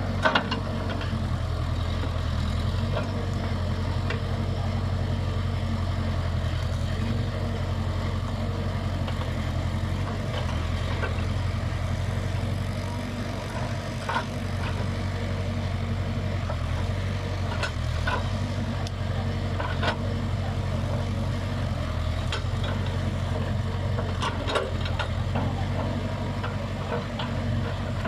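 Diesel engine of a Case 580 Super K backhoe loader running steadily while it works, with scattered short knocks and cracks.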